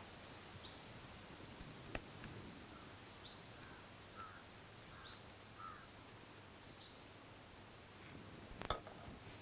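A spatula scraping and tapping against a ceramic bowl as a thick, sticky sweet paste is spread flat, giving a few sharp clicks about two seconds in and again near the end. Faint bird chirps sound in the background.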